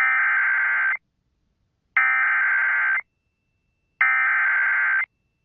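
Emergency Alert System SAME header: three identical bursts of digital data tones, each about a second long with a second's gap between, warbling rapidly between two high pitches. They are the coded start of an alert, here a National Weather Service severe thunderstorm warning.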